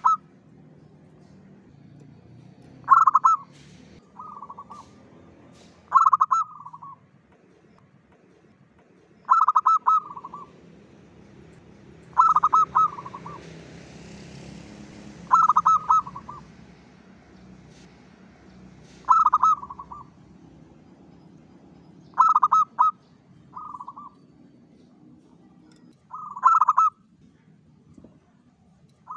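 Zebra dove (perkutut) singing its cooing song: a short, loud coo phrase about every three seconds, some followed by a softer short note.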